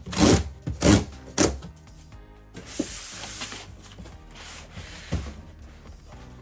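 Tear-strip tabs being ripped off a cardboard shipping box: three quick sharp rips in the first second and a half, then a longer tearing rip about three seconds in, and a knock of handling near the end.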